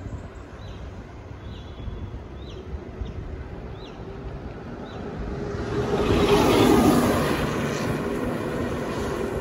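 Wind and road rumble from a moving bicycle, with a small bird giving short falling chirps about once a second in the first few seconds. From about halfway a loaded goods lorry's engine and tyres grow louder as the bicycle closes in behind it, peaking about seven seconds in.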